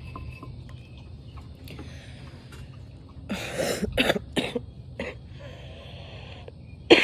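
A woman coughing into her elbow: a run of three or four coughs starting about three seconds in, then a single louder cough near the end.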